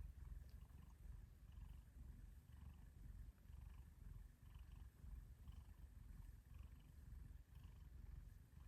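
A domestic cat purring softly: a faint, low, continuous rumble that swells and eases about once a second with its breathing.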